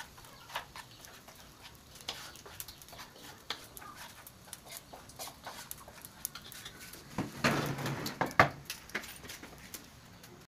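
Faint, scattered clicks and light knocks of kitchen things being handled, with a louder clatter of knocks about seven and a half seconds in.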